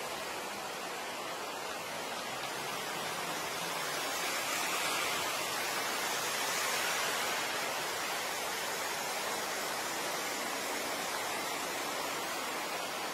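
Stormwater gushing out of drain openings in a roadside wall and splashing across the flooded street, a steady rushing hiss.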